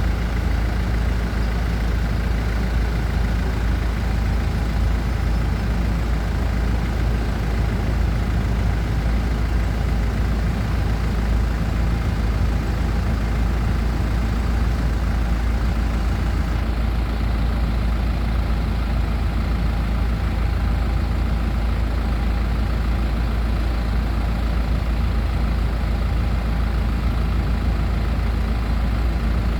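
Hino FB 130 bus engine running steadily at an even pace, with no revving.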